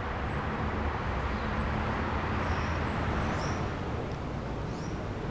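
Steady outdoor ambience: an even rushing hiss over a low rumble, like distant traffic, with short high chirps now and then.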